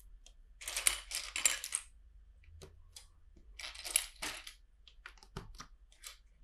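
Loose plastic LEGO bricks clattering and clicking as a hand sorts through a pile of them. There are two bursts of rattling, about a second in and again around four seconds, with single clicks in between.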